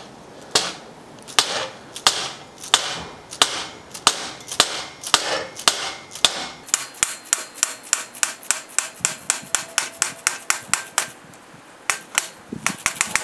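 Hammer blows on a Park Tool CCP-22 crank puller fitted to a bicycle crank arm that is stuck tight on its bottom-bracket spindle. There are single sharp strikes about every two-thirds of a second, then a fast run of about five strikes a second, then a pause and a few more strikes near the end.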